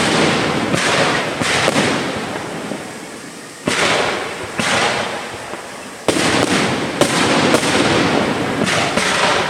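Aerial firework shells bursting overhead: about ten sharp bangs in clusters, each trailing off slowly as it echoes away.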